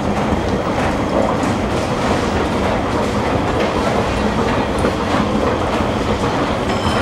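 Metro escalator running: a steady mechanical rumble and clatter from the moving steps and drive, with a constant low hum.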